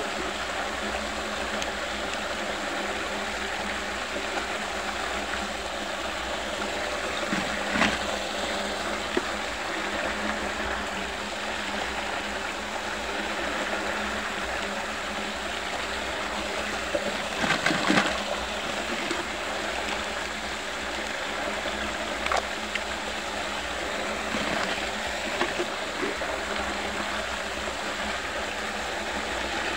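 Water swirling and rushing steadily down the drain hole of a whirlpool vortex, with a few brief sharp sounds breaking through, the loudest about eighteen seconds in.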